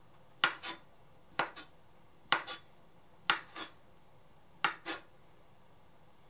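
Chef's knife slicing konnyaku on a cutting board: five cuts about a second apart, each a sharp knock of the blade on the board followed by a lighter second knock.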